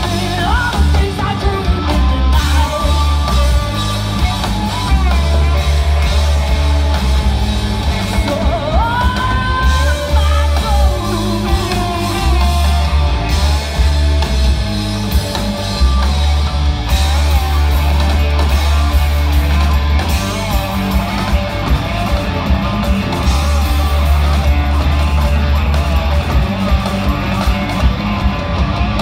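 Live rock band playing: electric guitars and drums, with a woman singing and shouting over them.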